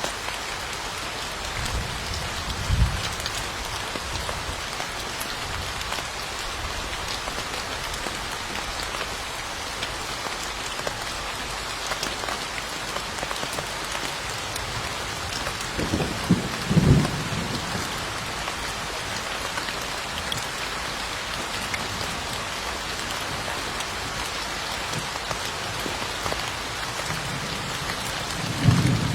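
Steady rain falling on a surface, a dense, even patter. It is broken three times by a brief low rumble: once about three seconds in, once about halfway through, and once near the end.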